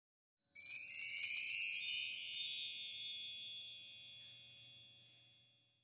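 A tinkling chime flourish of high, bell-like ringing tones. It comes in about half a second in and rings away to nothing by about five seconds.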